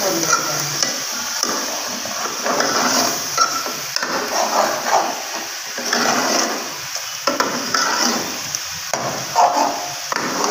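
Curry sizzling in an aluminium pot while a metal ladle stirs it, scraping and knocking against the pot now and then.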